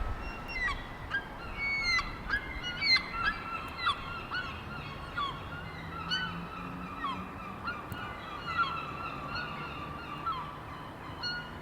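Seagulls calling: a dense run of short, honking calls, several overlapping at once, some sliding up or down in pitch.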